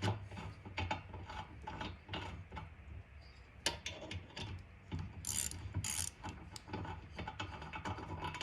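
Quick irregular ratcheting clicks from a tap handle working the thread-insert tap in a chainsaw cylinder head's spark plug hole, just after the tap has cut all the way through.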